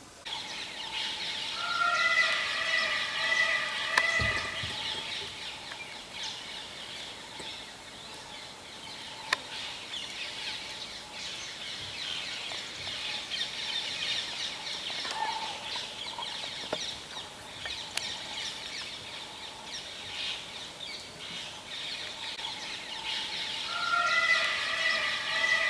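Dry-forest ambience: a steady chorus of birds and insects, with a louder bird calling in several held notes about two seconds in and again near the end.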